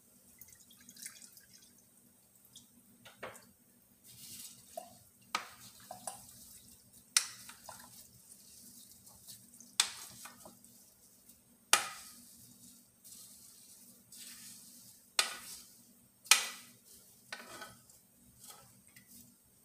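Metal spoon scraping and clinking against the inside of a saucepan as wet, oil-soaked plant trim is scooped out onto a cheesecloth strainer. Sharp clinks come every second or two, with soft scraping and squelching between.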